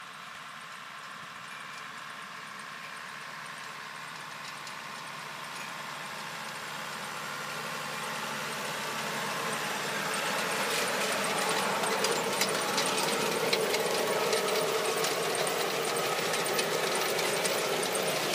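John Deere 6600 tractor's diesel engine running under load while pulling a Gaspardo Magica precision planter, growing steadily louder as it comes close. From about halfway on, the planter adds rapid clicking and rattling.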